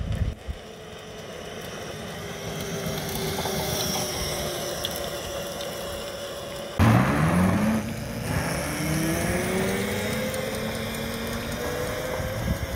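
Homemade 72 V, 3000 W electric go-kart motor whining, its pitch slowly falling as the kart eases off. About seven seconds in a sudden louder rush comes in and the whine climbs steeply in pitch as the kart accelerates, then keeps rising more gently.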